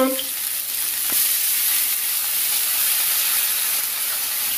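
Water poured from a plastic bottle into a hot frying pan of seared chicken drumsticks, hissing and steaming steadily as it hits the hot oil. A single click about a second in.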